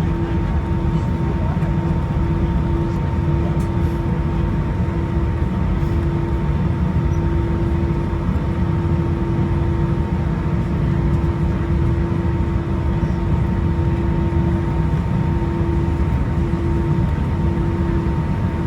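Steady cabin noise inside an Airbus A320-200 taxiing after landing: a constant low rumble from the engines at idle, with a steady hum running through it.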